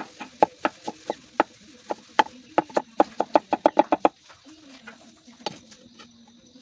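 Kitchen knife slicing a fresh bamboo shoot into thin strips: a run of sharp knocks that come faster, then stop about four seconds in. A faint low drawn-out sound follows.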